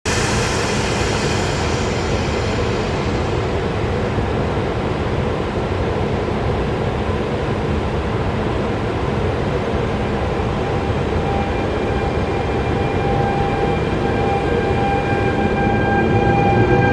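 Trenord Class E464 electric locomotive pulling away and drawing close, a steady loud rumble of the train on the track. In the last few seconds, steady whining tones come up through the rumble as the locomotive nears.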